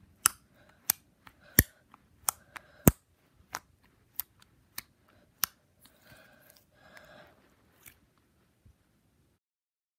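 Slime being pressed and worked, giving sharp, irregular clicking pops about once or twice a second, with a softer squishing sound around six to seven seconds in. The pops thin out and stop about eight seconds in.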